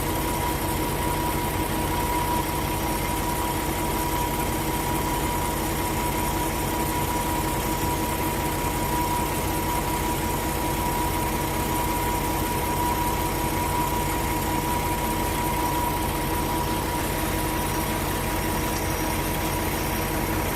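An engine idling steadily, with a constant high tone running over it.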